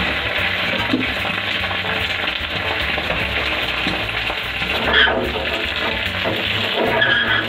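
An egg frying in a pan, a steady sizzle, with two brief higher-pitched sounds about five and seven seconds in.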